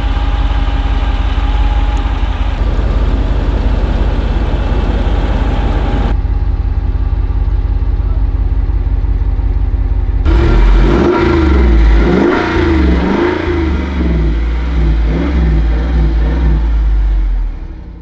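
Jeep Wrangler Rubicon 392's 6.4-litre HEMI V8 idling steadily, then revved up and down several times from about ten seconds in. The sound stops suddenly at the end.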